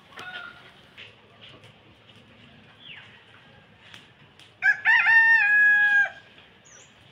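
A rooster crows once about two-thirds of the way through: a few short opening notes, then a long held final note, the loudest sound by far. Small bird chirps sound faintly before it.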